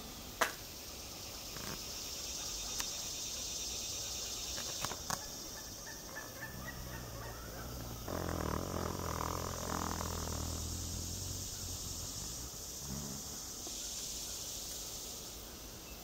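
Insects buzzing with a steady high drone that swells and fades. Midway a low humming rumble rises for several seconds and then dies away, and a few sharp clicks come early, the loudest about half a second in.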